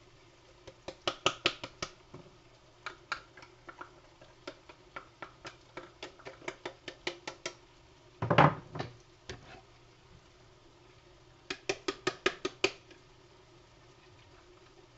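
Quick runs of light clicks and taps of a utensil against a stainless steel skillet as sliced olives are knocked into it, with one heavier knock about eight seconds in.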